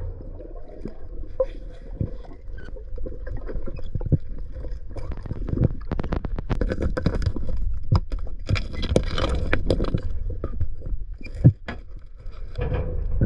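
River water sloshing and gurgling with scraping and a run of sharp clicks and knocks, as a person wades and drags a fishing magnet along the riverbed.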